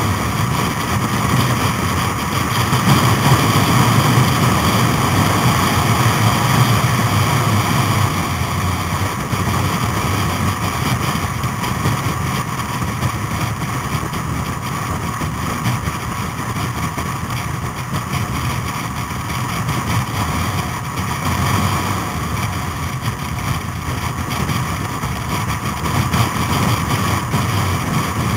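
Vintage motorcycle engine running steadily at road speed, heard from on board a moving motorcycle, with a constant rush of wind and road noise.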